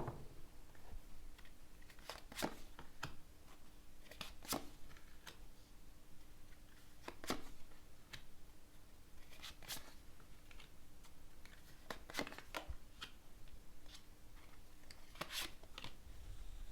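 Tarot cards being handled and drawn, with scattered short, sharp card snaps every second or two.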